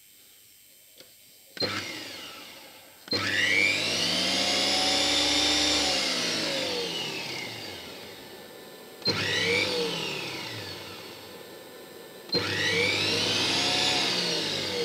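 Thermal mixer's electric motor run empty in four bursts, one brief and three longer: each time it spins up with a rising whine, then winds down as the pitch falls. This is the test of its worn drive clutch after a repair with heat-shrink tubing.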